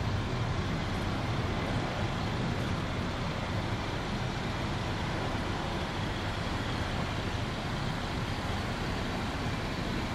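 Steady airport background noise: an even, unchanging rumble and hiss of engines and traffic, with no distinct events.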